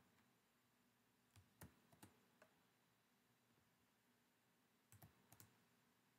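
Near silence: faint room tone with a few soft clicks, a small cluster about a second and a half in and another about five seconds in.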